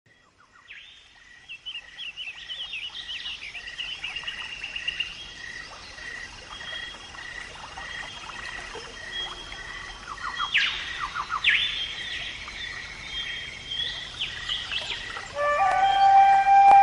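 Several birds chirping and trilling, over a steady note that repeats about twice a second. Near the end a flute-like melody comes in with long held notes.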